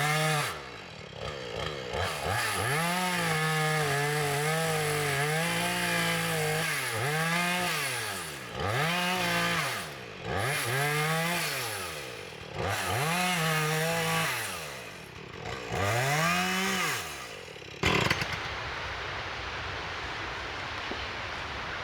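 Two-stroke chainsaw cutting the face notch into a standing tree, its engine revving up and dropping back over and over as the chain bites into the wood. It stops suddenly about 18 seconds in with a knock.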